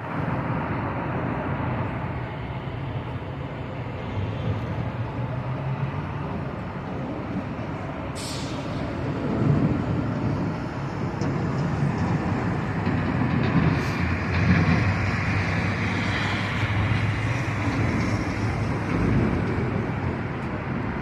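Steady rumble of passing motor traffic, with a brief sharp hiss about eight seconds in and another around fourteen seconds.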